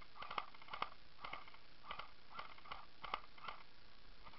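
Airsoft rifle firing single shots: about ten short, sharp cracks in quick succession, roughly two or three a second at uneven intervals.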